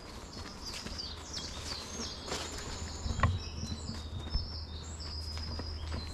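Songbirds singing, a busy run of short, high chirping notes. A low steady rumble comes in about halfway through.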